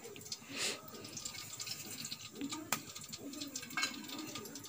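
Whole spices (bay leaf, cloves, cinnamon, star anise) frying gently in sesame oil in a steel pan, giving a faint sizzle with scattered small pops and crackles and a brief hiss about half a second in.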